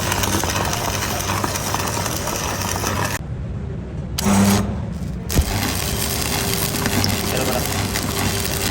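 Continuous mechanical clattering and crackling from metalwork on the axle. It drops away briefly about three seconds in and returns about two seconds later.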